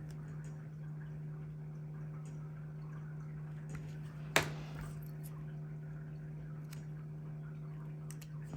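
Quiet handling of a sticker sheet being cut, with faint scattered ticks and one sharp click a little over four seconds in, over a steady low hum.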